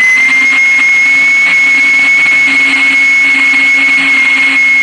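Super Star electric blender running at a steady speed, blending mint leaves into a tamarind and date drink, its motor giving one steady high whine over a loud whirring.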